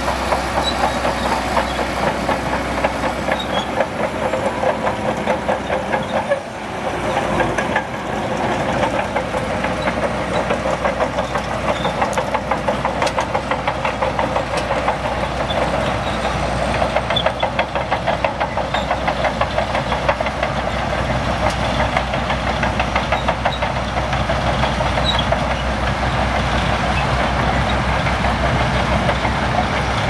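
Shantui DH17C2 bulldozer's diesel engine running steadily under load, with a fast even clatter like the tracks. The engine dips briefly about six seconds in, then picks up again.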